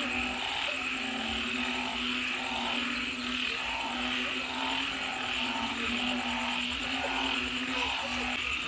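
Night chorus of frogs and insects: frogs calling in an even rhythm, about three calls every two seconds, over a continuous high insect trill.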